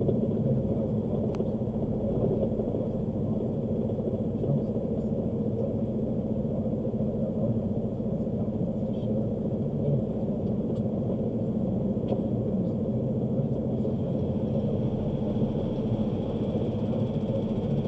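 A truck's engine running with a steady low rumble and hum, heard from inside the cab. For most of the time the truck stands idling at a standstill.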